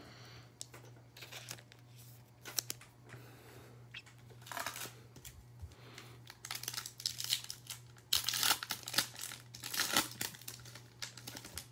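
Foil wrapper of a trading-card pack crinkling in irregular bursts as it is handled, then torn open; the loudest crackling comes in the second half.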